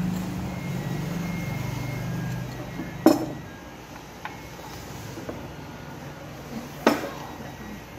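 Two sharp clinks of porcelain dishes, about four seconds apart. A low engine drone runs under the first couple of seconds and fades out.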